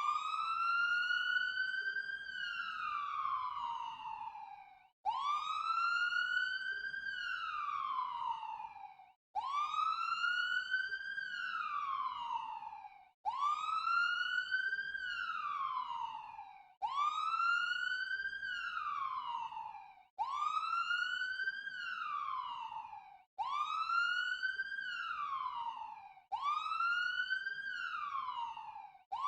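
Ambulance siren wailing over and over. Each wail climbs quickly, then slides slowly back down, with a short break before the next, and the wails come closer together toward the end.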